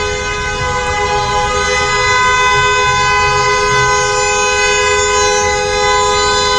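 Several horns blaring together in one long, steady chord, held throughout, over a low rumble, as in a street celebration with horns honking.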